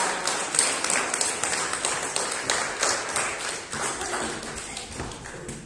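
A small audience clapping, the claps thinning and fading toward the end.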